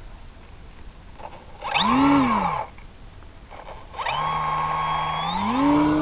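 Easy Glider's electric motor and folding propeller: a short burst about two seconds in that rises and falls in pitch. The motor starts again about four seconds in with a steady whine, then climbs in pitch near the end as the throttle is opened to about 80% for the launch.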